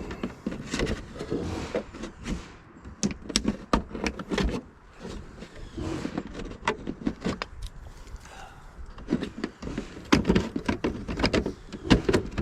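Irregular knocks, taps and rattles of hands-on roofing work, sheet-metal trim being handled and fitted, over a steady low rumble.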